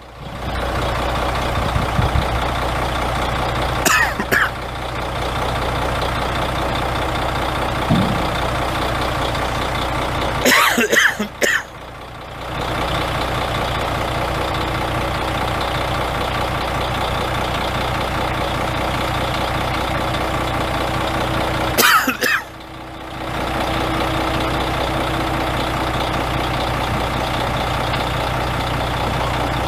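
A 1991 Freightliner FLD dump truck's Detroit Diesel Series 60 six-cylinder turbo diesel idling steadily while the dump bed is lowered. Short noisy bursts come three times, about 4, 11 and 22 seconds in, and the engine sound dips briefly around the last two.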